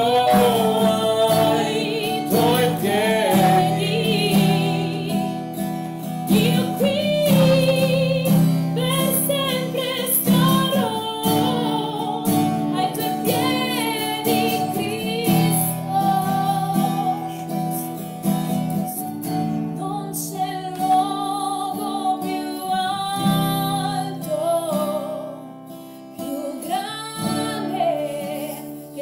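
A woman and a man singing a worship song to a strummed acoustic guitar, with the woman's voice leading. The music drops softer for a moment near the end.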